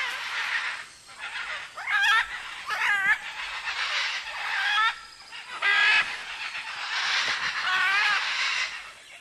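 Great green macaws squawking as they squabble: a run of loud, raspy calls, several wavering up and down in pitch, with short lulls about a second in and about halfway through.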